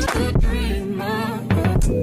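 Background music: an R&B/soul song with a sung vocal line over a heavy bass and beat.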